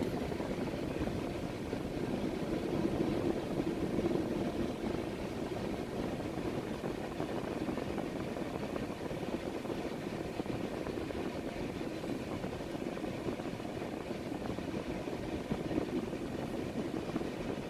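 Freight train cars rolling steadily past a grade crossing, a continuous low rumble of wheels on rails heard from inside a car.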